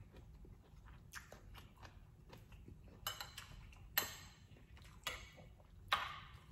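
Soft chewing, with a metal spoon scraping and clinking against a plate of shrimp and grits in a few short clicks. The sharpest clink comes about four seconds in.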